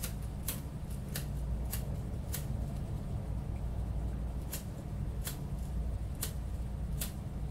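A hand-held lighter clicked over and over, a sharp click roughly every half second with a pause of about two seconds midway. A steady low hum runs underneath.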